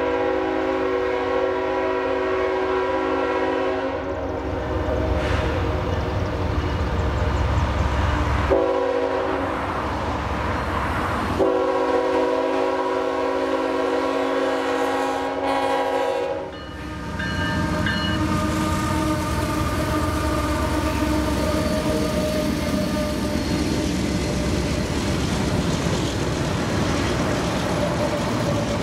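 Diesel freight locomotive's multi-chime air horn blowing long blasts for a grade crossing: one in the first four seconds, then two more from about eight to sixteen seconds with a brief break between them. After that, the locomotives pass close by with a steady rumble of engines and wheels.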